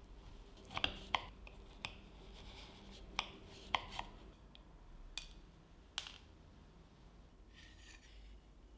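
A knife slicing through a frozen coffee semifreddo on a ceramic serving dish: soft scraping of the blade with several sharp clicks and taps over the first six seconds, then a brief scrape near the end.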